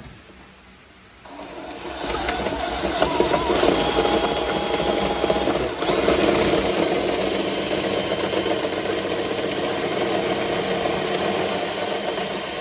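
A drill spinning a Milwaukee Hole Dozer bi-metal hole saw through the steel panel of a car's rear hatch, the teeth grinding and screeching steadily as they cut the metal. It starts about a second in and runs with one short break near the middle.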